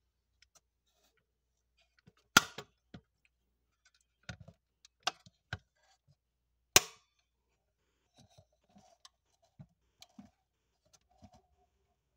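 Doors of a 1:18 scale model Audi A6L being handled and snapped shut: two loud, sharp clacks a few seconds apart, with lighter clicks and taps between and after.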